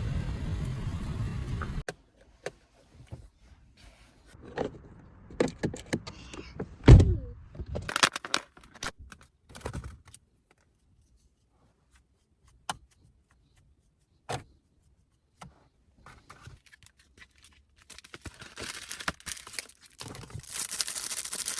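Scattered clicks, rattles and knocks of small objects being handled, with one heavy thump about seven seconds in. A low steady rumble cuts off abruptly about two seconds in, and a hissing noise comes in near the end.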